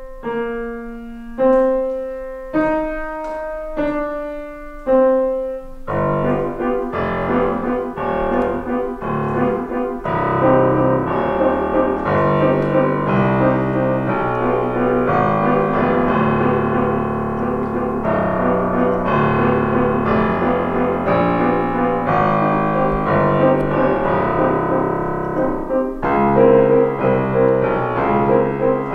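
Grand piano played four hands. Four separate notes are struck about a second apart, each left to ring and fade. Then, about six seconds in, the music turns into a dense, continuous passage over a steady bass line.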